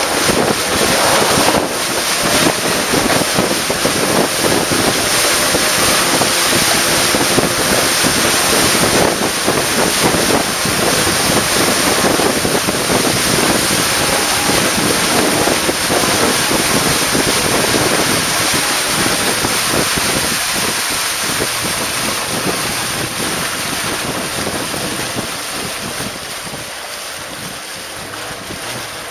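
Wind buffeting the microphone and river water rushing past a fast-moving longboat, a steady loud noise that eases gradually near the end.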